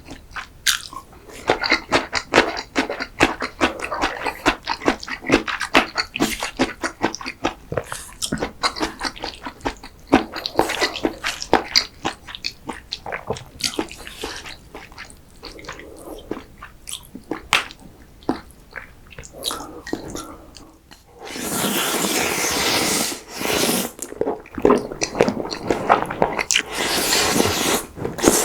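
Close-miked eating sounds of a cream pasta and risotto meal: a steady run of wet chewing and mouth clicks, broken about three-quarters through by two longer, louder slurps a couple of seconds apart.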